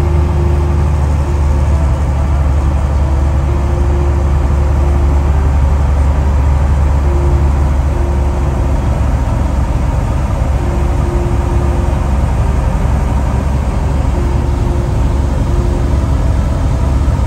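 A Cessna 170B's piston engine and propeller drone steadily, heard inside the light aircraft's cabin.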